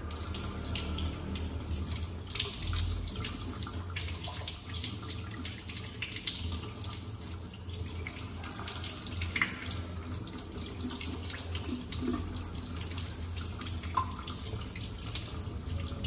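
Kitchen faucet running steadily into a stainless steel sink, the stream splashing over hands rubbing a monkey's foot held under it.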